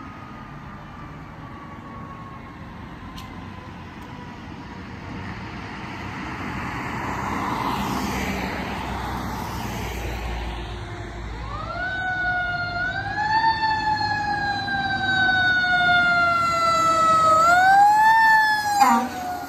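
Fire ladder truck's siren wailing as it approaches, each sweep rising quickly and falling slowly, growing louder toward the end. A fainter siren tone slides slowly down in the first seconds, and the pitch drops suddenly as the truck passes near the end.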